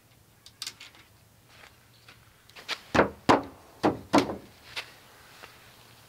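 Wooden wall boards of a kit-built cabin being knocked into place by hand: a handful of sharp wooden knocks and thuds, the loudest bunched together around the middle.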